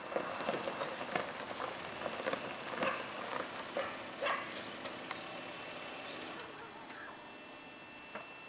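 Insect chirping, like a cricket, repeating in short even chirps a few times a second over a rural outdoor background. Scattered irregular knocks or clops come through, loudest in the first half.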